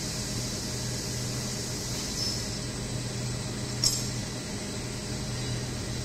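Injection molding machine running with a steady hum and a high hiss, with one sharp click about four seconds in.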